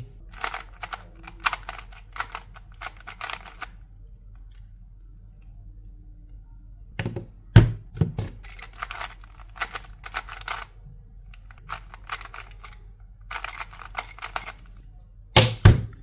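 Plastic clicking and clacking of a dinosaur-shaped 2x2x3 twisty puzzle being turned fast in quick bursts of moves during a speed solve. There is a loud thud about halfway through and another just before the end, the last likely hands slapping the timer pads to stop the timer.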